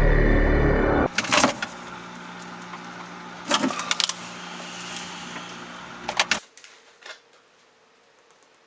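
Eerie music cuts off about a second in. It gives way to a steady low hum with a few scattered clicks and knocks, in small groups about 2.5 seconds apart. The hum stops near the end, leaving near silence.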